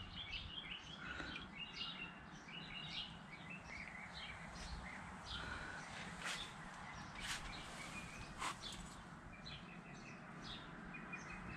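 Birds chirping faintly in the background, many short calls throughout, with a few sharp clicks around the middle.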